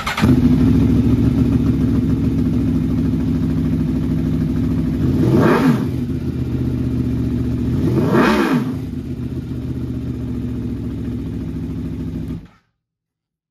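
Aprilia Tuono V4 Factory's 1100 cc V4 engine, fitted with an Austin Racing exhaust, firing up and idling, revved twice in short blips about five and a half and eight seconds in. It is switched off near the end and cuts out suddenly.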